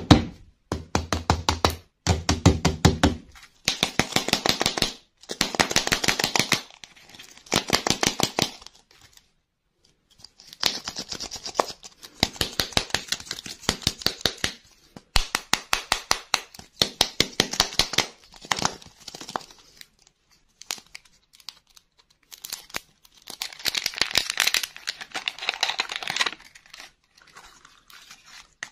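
A foil wrapper crinkling and tearing as it is peeled off a plastic surprise-egg lollipop, in repeated bursts of crackly rustling. A few low knocks in the first few seconds.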